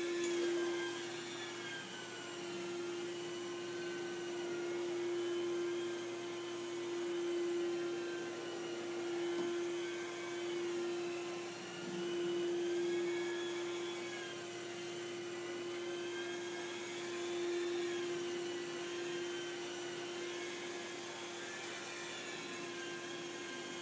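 Rotary carpet extraction machine running under hose vacuum suction. It gives a steady hum with a higher whine above it that wavers slowly in pitch as the machine is worked over the carpet.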